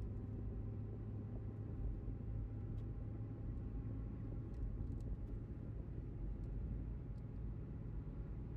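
Steady engine and road drone heard from inside a moving vehicle, a low rumble with faint steady engine tones above it.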